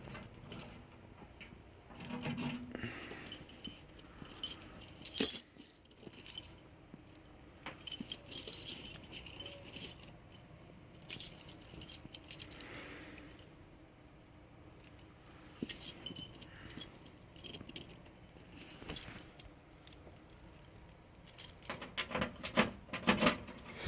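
Irregular bursts of metallic jingling and clicking rattles, several seconds apart, with quiet gaps between them.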